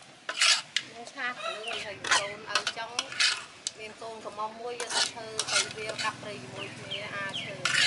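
Metal cooking utensils clattering and scraping against cookware while food is stirred, in many sharp irregular knocks. Chickens cluck intermittently between the knocks.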